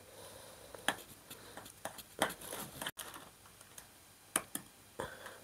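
Scattered light clicks, taps and faint scrapes as a spoon works thick whipped cream in a bowl, then plastic being handled after a brief dropout about three seconds in.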